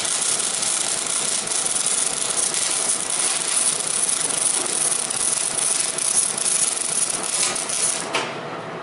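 MIG welding arc on a steel tube frame, crackling and sizzling steadily through one long bead, cutting off about eight seconds in when the torch trigger is released.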